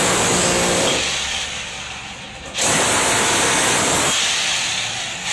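1900-watt SWT electric hammer drill chiselling into a concrete wall. It runs in two loud bouts, the second starting suddenly about two and a half seconds in.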